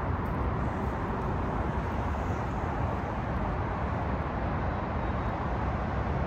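Steady roar of Interstate 5 freeway traffic: a continuous wash of noise with no single vehicle standing out.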